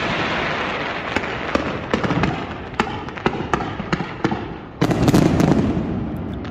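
Fireworks display: dense crackling and hiss, broken by many sharp bangs and pops, with a louder burst starting about five seconds in.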